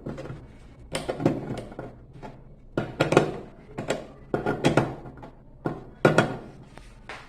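A wrench and metal tools knocking and clinking on the washing machine's pulley bolt and drive mechanism, in short sharp knocks that often come in pairs.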